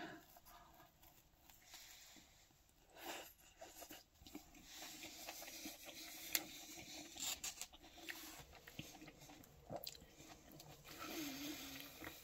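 A person quietly chewing a bite of pizza: faint mouth and chewing sounds with scattered small clicks.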